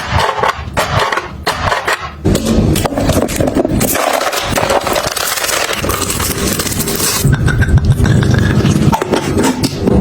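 Scraping and knocking of household items being handled, with a stretch of steady hiss in the middle.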